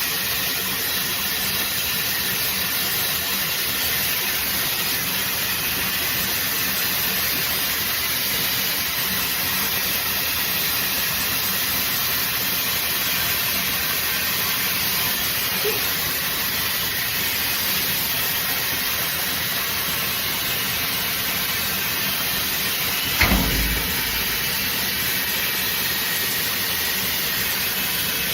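Shark FlexStyle hair dryer running steadily, a constant rushing hiss of blown air. A single handling bump comes late on.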